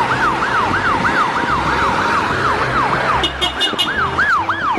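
Ambulance siren in fast yelp mode, rising and falling about four times a second, with a low rumble underneath.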